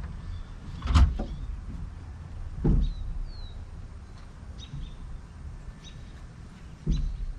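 Wooden knocks as a framing stud is worked into place in a stud wall: a sharp loud knock about a second in, a duller thud a couple of seconds later and another near the end. Birds chirp briefly in between.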